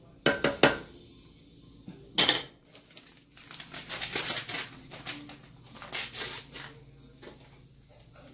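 Wooden spoon knocked three quick times against the rim of a nonstick skillet, then a sharper clack a little after two seconds, as when the spoon is set down. Two stretches of crinkly rustling follow, around four and six seconds in.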